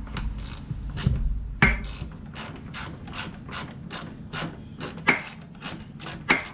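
Socket ratchet wrench clicking in an even rhythm, about two to three clicks a second, as a bolt is worked loose, with a few louder metal knocks in between.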